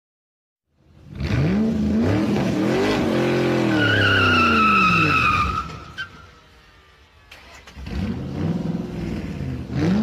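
Sports car engine revving up and back down, with a tyre squeal over the top of it about four seconds in. After a short lull, the engine revs up again near the end.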